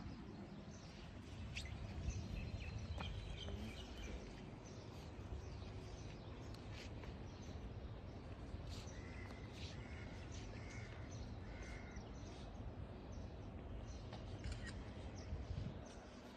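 Outdoor ambience: a steady low rumble with scattered short bird calls, including a run of four short calls about two-thirds of the way through.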